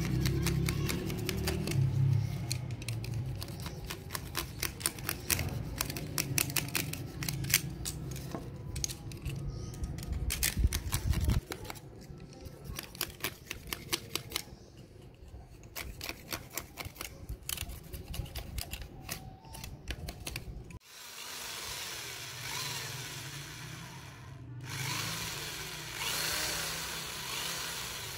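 Background music with a rapid ticking beat. About three-quarters of the way in, an electric hand drill starts boring holes in PVC pipe. It runs twice with a brief stop between.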